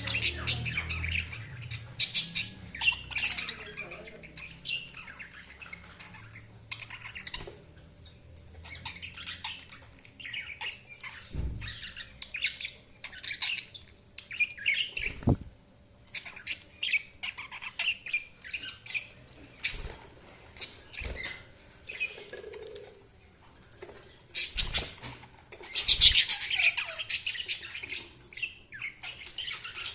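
Budgies chirping and squawking in quick, irregular bursts of short high chirps, with a few sharp low thumps among them.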